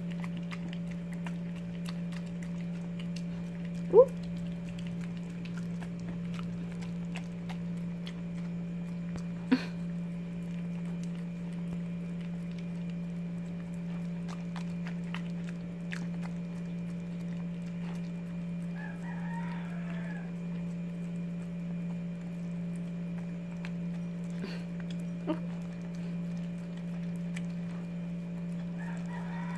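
A steady low electrical-sounding hum, with a rooster crowing faintly in the distance twice, about two-thirds of the way in and again at the end. A few brief sharp sounds stand out over the hum, the loudest about four seconds in.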